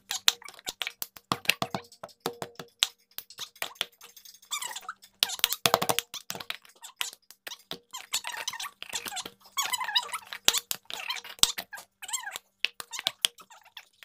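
Rapid hand claps and plastic cups tapped, slapped and set down on a table in the cup-game rhythm, played back sped up, so the knocks come fast and close together. At times, squeaky, sped-up voices sound between the knocks.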